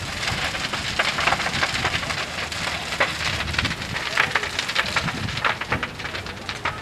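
A burning house crackling, with many rapid sharp pops over a steady rushing noise.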